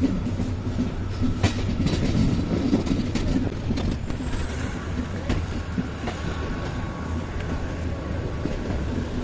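Train running along the track: a steady low rumble with scattered sharp clicks from the wheels on the rail joints, and a thin high whine that sets in about halfway.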